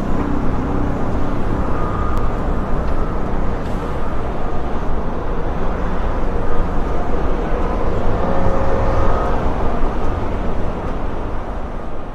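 Heavy construction machinery running, a steady dense engine rumble with faint whining tones over it.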